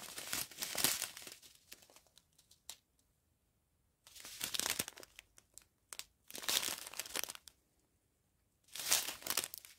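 Small clear plastic zip bags of round diamond painting drills crinkling as they are handled, in a few short bouts with pauses between.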